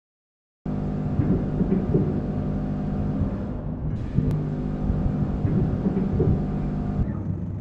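Automatic vertical packaging machine with a vibratory bowl feeder running: a steady machine hum of several low tones with irregular mechanical noise over it. It starts suddenly about half a second in.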